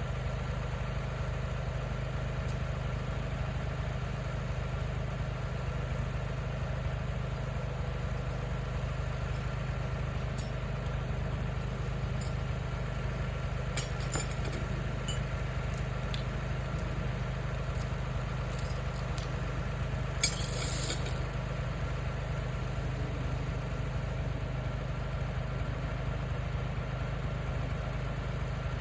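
An engine running steadily at a low, even speed, with a brief loud metallic clatter about twenty seconds in.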